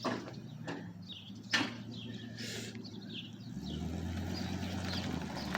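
A vehicle engine running steadily at a low hum, with its note stepping lower about three and a half seconds in. Birds chirp over it, and a few sharp clicks come in the first two seconds.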